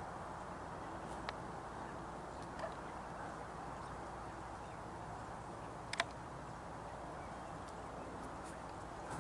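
Faint steady outdoor background hiss with a few short sharp ticks, the loudest about six seconds in.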